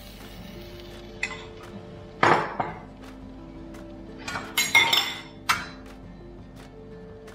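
Metal kitchen utensils, a spoon and tongs, clinking and clattering against an iron tawa griddle and steel dishes in a few short knocks. The loudest comes about two seconds in and a quick cluster follows near the five-second mark. Soft background music with sustained notes runs underneath.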